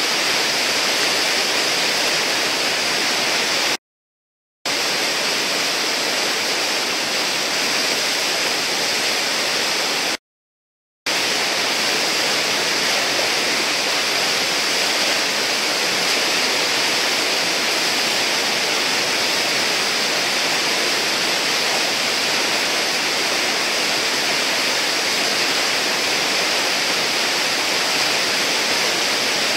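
Whitewater of a river hole churning and rushing with a steady, loud roar. It is broken twice by brief dropouts to silence, about four and ten seconds in.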